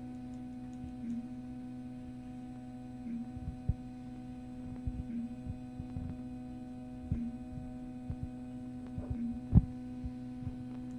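EPAX X1 resin printer's Z-axis stepper motor running steadily, raising the build plate up its lead screw. It is a steady pitched hum with a faint pulse about every two seconds, and it stops right at the end. A few short knocks sound over it, the sharpest near the end.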